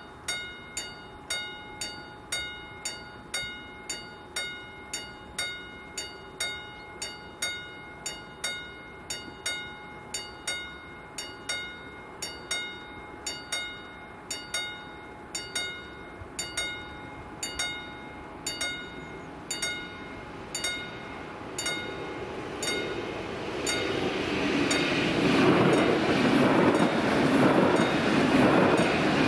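Level-crossing warning bell striking about twice a second, each strike a short ringing tone. About three-quarters of the way through, a passenger train arrives and its running noise swells and covers the bell as it passes over the crossing.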